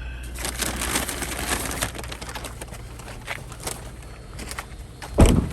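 Rustling and small clicks of handling inside a car, then a single loud thump about five seconds in, like a car door being shut.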